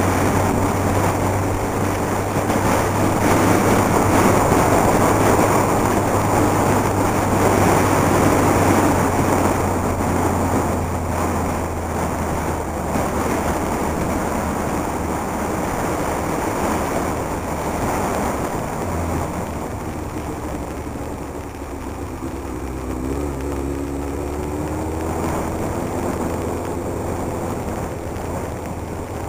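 Motorcycle riding, heard from a camera on the bike: steady engine hum under wind and road rush, louder over the first half. About three quarters of the way through, the engine note rises as the bike speeds up.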